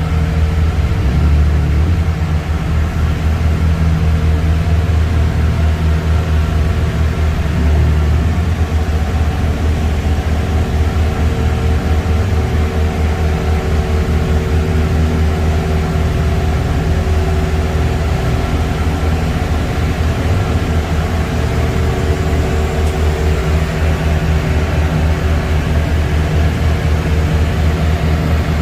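Steady low rumble of a car driving, engine and road noise as heard inside the cabin.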